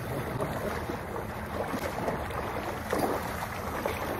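Several people wading through shallow, near-freezing lake water, their legs and feet splashing in uneven steps, with wind buffeting the microphone.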